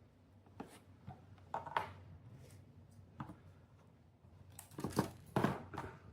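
Plastic-insulated solid copper wires of a Cat6 cable being straightened and handled by hand, giving short rustling and scraping strokes, a few at first and a quicker cluster near the end.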